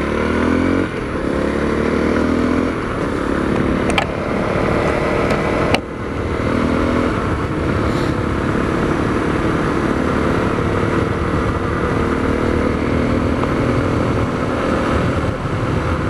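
Honda CRF250L's single-cylinder four-stroke engine through an FMF Q4 HEX slip-on exhaust, climbing in pitch as the bike pulls away over the first few seconds, then running at a steady cruise. Two sharp clicks about four and six seconds in.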